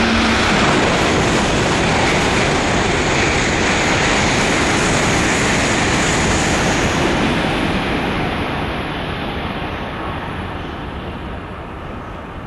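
E2 series Shinkansen coupled with an E3 series Komachi set passing through a station at speed: a loud, steady rush of wheel, rail and air noise that begins to fade about eight seconds in.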